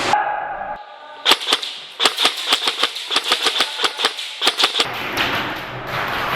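Airsoft gun firing: a quick burst of three sharp shots, then a longer run of rapid shots at about six a second that stops near the end.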